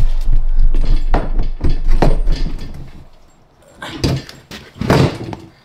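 Several knocks and clunks from a cart's loose pneumatic wheel and its metal frame being handled on concrete; the wheel has come off the axle because its retaining pin is missing. A low hum fades out in the first couple of seconds.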